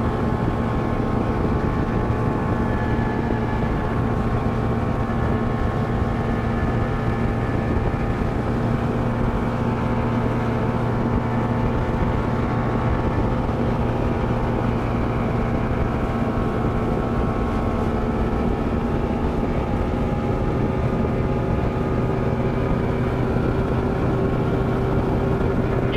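Mercury 200 two-stroke V6 outboard running at high speed, a steady loud drone, with wind on the microphone. The engine's note shifts slightly about three-quarters of the way through.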